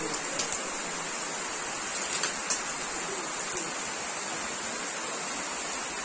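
Heavy rain falling steadily on leaves and muddy ground, a constant hiss with a few sharper drop taps, the loudest about two and a half seconds in.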